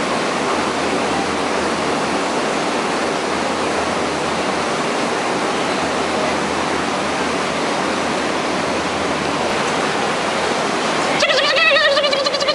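Steady rushing of falling water. About eleven seconds in, a louder, wavering pitched sound with several overtones starts up over it.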